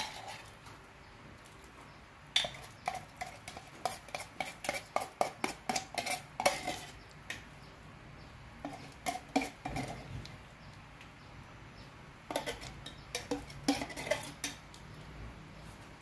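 A metal spoon clinking and scraping against a metal cup and a brass wok while scooping out thick chili paste. The clinks come in quick runs: a long run of several seconds, then two shorter ones.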